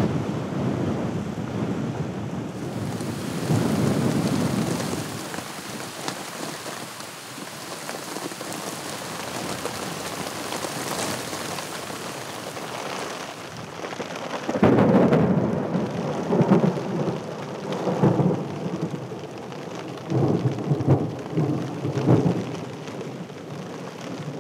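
Thunderstorm: steady rain falling, with thunder rumbling near the start and again as a run of loud, uneven rolls through the second half.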